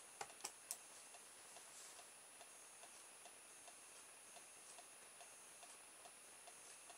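Near silence with faint, even ticking about two or three times a second; a few light clicks in the first second.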